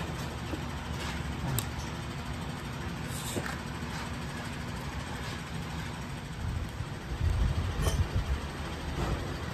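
A steady low machine hum in the room, with a few soft knocks and rustles of handling about seven to eight seconds in.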